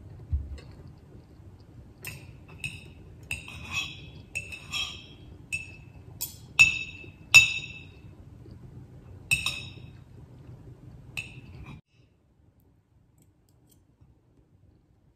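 Metal fork and knife clinking against a bowl of noodles: a dozen or so sharp, ringing clinks over about ten seconds, after a dull knock at the start.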